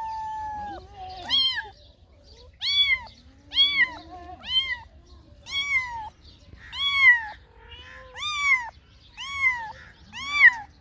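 A cat meowing repeatedly in short, high-pitched, rising-and-falling meows about once a second, after one longer, falling meow at the start.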